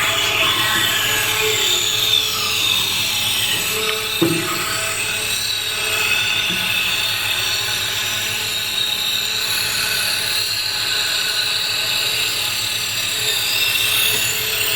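Rattan cane rounding machine running with a steady high-pitched whine whose pitch wavers slightly, and a single knock about four seconds in.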